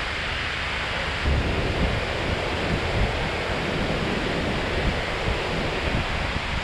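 Steady rush of water pouring over a low dam spillway. From about a second in, wind buffets the microphone with irregular low thumps.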